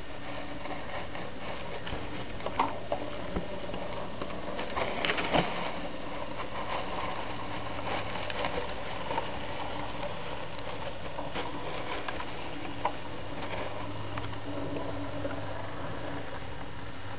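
HO scale SW9 switcher model running along the track with a steady low motor hum, and a few sharp clicks, the loudest about five seconds in.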